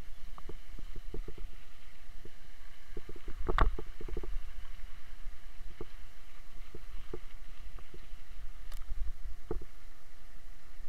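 Mountain bike riding over a wet gravel and mud track, heard from a camera on the move: a steady low rumble of wind and vibration with frequent small clicks and rattles as the wheels go over stones, and one louder knock about three and a half seconds in.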